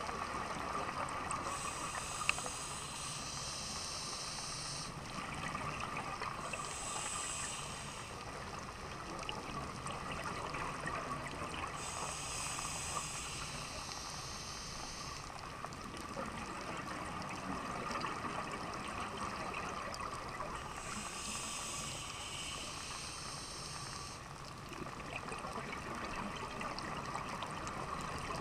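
Scuba divers breathing through their regulators, heard underwater: several rushes of bubbling hiss, each a few seconds long, as exhaled air bubbles out, over a steady hiss of the water.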